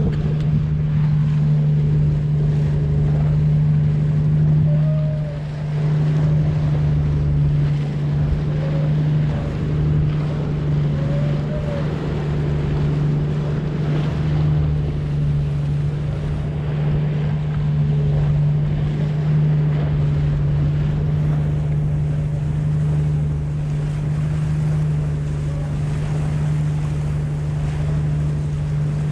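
A bangka pump boat's engine running steadily under way, a constant low tone, with water rushing past the hull and wind on the microphone.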